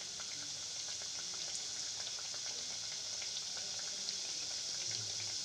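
Gujiyas deep-frying in hot ghee in a kadhai on a medium flame: a steady sizzle dotted with small crackles.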